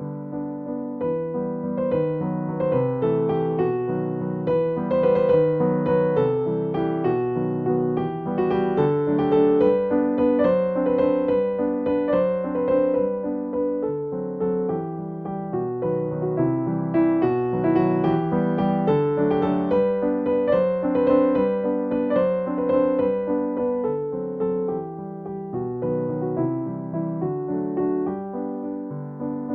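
Background piano music: a soft, steady stream of piano notes and chords.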